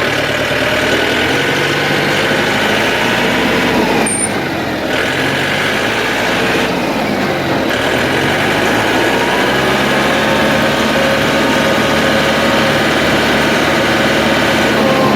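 Farm tractor engine running steadily, its pitch slowly rising and falling as the revs change.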